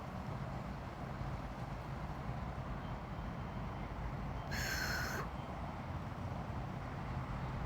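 Steady rumble of road traffic from a nearby freeway. About four and a half seconds in, a brief, harsh, high-pitched sound cuts in for under a second.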